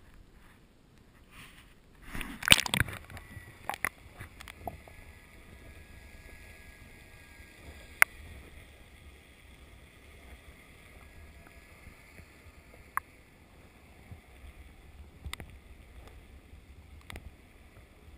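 Water splashing and sloshing around a waterproof action camera as it goes under the surface about two and a half seconds in, then a low, muffled underwater hiss broken by a few sharp clicks.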